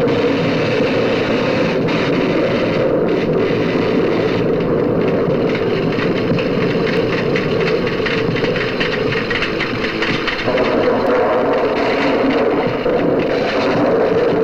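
Electrical laboratory apparatus on an old black-and-white film soundtrack, giving a steady loud buzzing roar. Sparks crackle through the second half.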